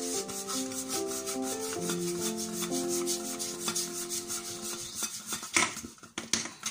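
Fingers rubbing butter around the inside of a cake pan, a quick run of soft brushing strokes, with one louder stroke about five and a half seconds in. Background music with held notes plays underneath.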